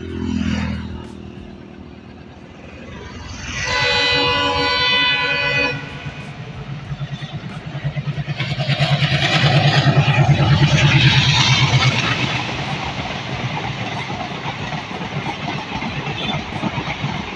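A train passing: a horn sounds as one steady chord for about two seconds a few seconds in, then the train comes past loudly with a low, pulsing engine beat that peaks about halfway, followed by a steady rhythmic clatter of wagons over the rails. At the very start a road vehicle passes with falling pitch.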